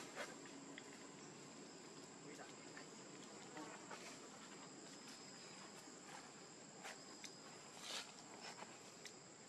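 Faint, steady, high-pitched chorus of insects, with a few soft clicks or rustles here and there.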